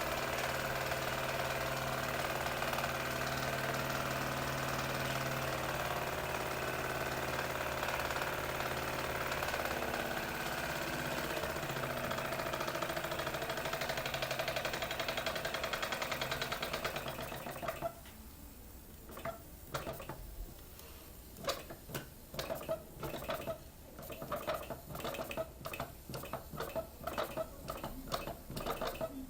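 Mamod toy live-steam engine running steadily with a fast mechanical whirr, which cuts off abruptly about two-thirds of the way through; scattered light clicks and taps follow.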